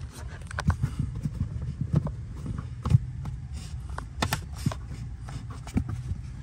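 Irregular clicks, taps and rubbing from hands working an amplifier power cable through a rubber firewall grommet in a car footwell, the sharpest knock about three seconds in, over a low steady hum.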